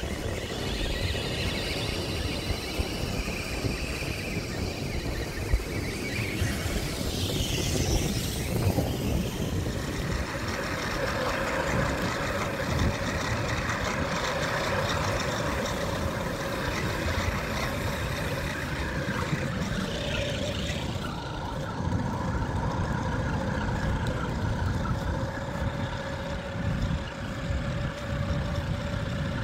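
Radio-controlled car driving, its motor running with a steady whine over a rumble of wheels on rough ground. The pitch sweeps up and back down about eight seconds in and again about twenty seconds in.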